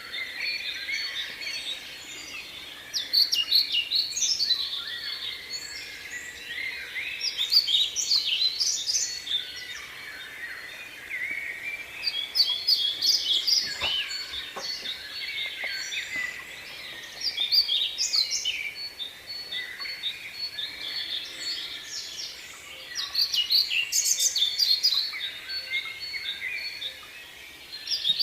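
Many small birds chirping and twittering together in busy overlapping bouts that swell and ease every few seconds.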